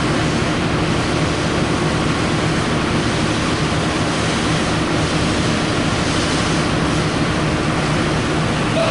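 Steady rumble of idling locomotives in a railway station: a constant low engine hum under an even wash of noise.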